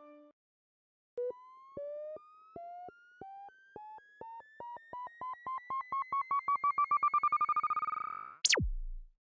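Synthesized sound effect: short electronic beeps start about a second in, climbing steadily in pitch and coming faster and faster, until a very fast downward sweep from very high to very low pitch near the end, leaving a brief low hum.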